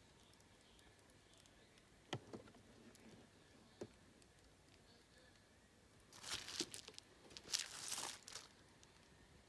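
A boxed vinyl figure in a clear plastic protector case is handled and turned over on bubble wrap. Two light taps come first, then two spells of plastic crinkling and rustling in the second half.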